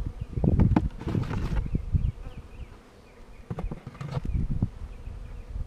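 Honeybees from a swarm being moved into a hive, buzzing as they fly around the open box. Under them run uneven low rumbling and a few knocks, loudest about one second in and again near four seconds.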